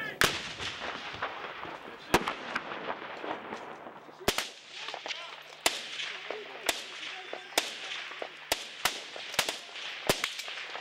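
Rifle fire in a firefight: about a dozen single sharp shots at irregular intervals, some a second or more apart, some close together near the end.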